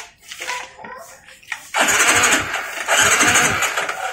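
Suzuki Smash 115 motorcycle's electric starter cranking the engine, starting suddenly about two seconds in and dipping briefly before carrying on, powered by a freshly fitted home-built LiFePO4 battery.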